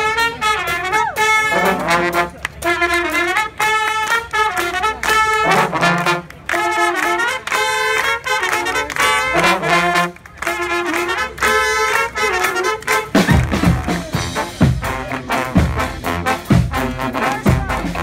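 Brass street band playing: trombones, trumpets and saxophones in short repeated phrases with brief gaps between them. About thirteen seconds in, a beat of low thumps comes in under the horns.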